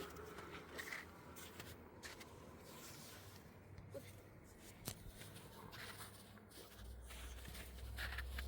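Faint rustling and a few light clicks and knocks. A low steady rumble comes in near the end and grows louder.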